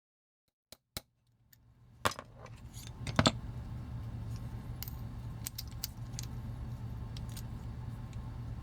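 Sharp metallic clicks and taps of a pin tool working against a toy robot's parts while trying to push out its pins, the loudest about two and three seconds in, then lighter scattered clicks over a steady low hum. The first second is dead silent.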